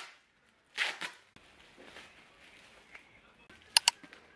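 Bubble wrap and plastic packaging rustling as a parcel is unwrapped by hand: a short crinkle about a second in, then two sharp snaps close together near the end.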